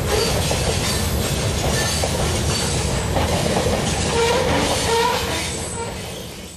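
Norfolk Southern train's cars rolling over the rails, with short wheel squeals as it rounds a curve; the sound fades out near the end.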